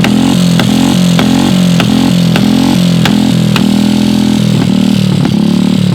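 Royal Enfield Classic 350's single-cylinder engine running loud, with a regular pulsing beat of about three pulses a second that evens out briefly in the middle.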